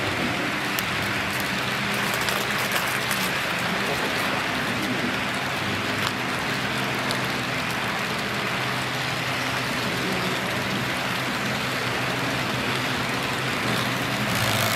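HO/OO scale model hopper wagons rolling past close by on model track: a steady rolling rattle of many small wheels on rail, with a faint low hum underneath.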